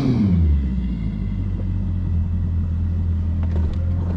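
Bass boat's outboard motor running at low speed, dropping in pitch from a brief rev at the start and settling into a steady low drone, with a faint high whine over the first few seconds.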